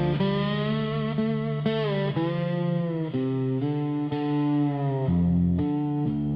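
Instrumental music: a sustained lead guitar with an effects-laden, slightly distorted tone playing a slow melody over a low bass line, notes changing about every half second to a second.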